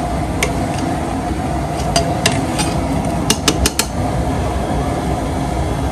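Scattered sharp clinks and taps of kitchen utensils against metal dishes, several in quick succession a little past the middle, over a steady background of kitchen noise.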